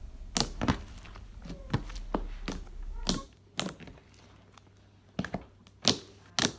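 Fingertips poking and patting a large glossy slime softened with lotion, water and baby oil, making sharp irregular clicks, two or three a second at first and more spaced out after about three seconds.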